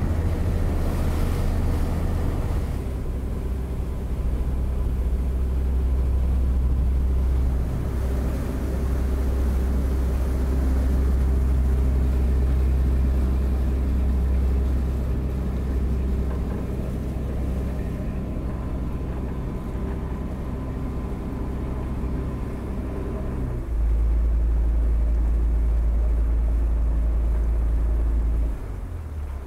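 A ship's inboard engine running steadily while the clipper motors with its sails furled: a low drone with a steady hum. For the last few seconds it turns deeper and louder.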